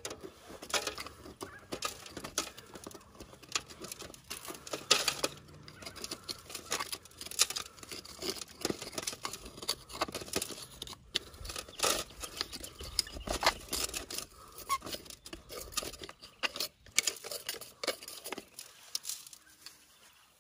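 A thin metal pick scraping and picking hardened dirt out of the broken base of an old glass beer bottle, with crumbs falling onto a wire-mesh classifier: many irregular clicks and scrapes.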